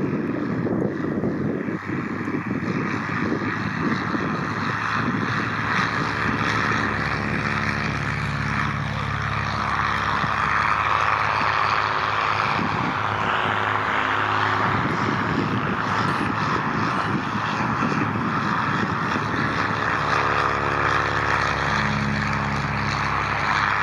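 Two Cessna L-19 Bird Dog light aircraft flying by, their air-cooled flat-six piston engines and propellers droning steadily. The engine note shifts in pitch as they pass.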